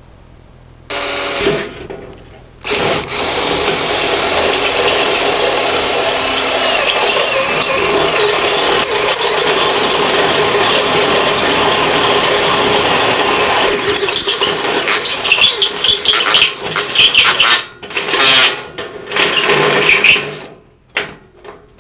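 Cordless drill boring holes through the wall of a steel barrel: a short burst about a second in, then a long steady run, then stop-start bursts in the last third. The bit has worn out and no longer cuts well.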